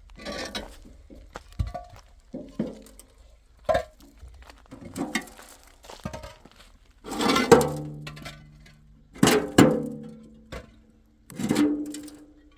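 Metal cookware knocked and clanked about: a run of scattered knocks, with three louder strikes in the second half that each leave a short ringing tone.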